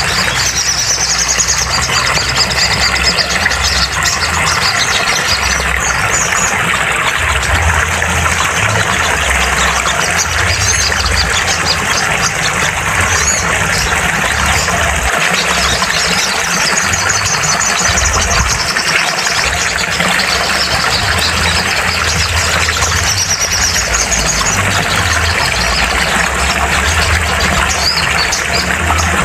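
Sogon birds singing fast, high trilled phrases that come and go every few seconds, over a constant loud hiss and low rumble. This is a therapy recording meant to set a quiet sogon singing.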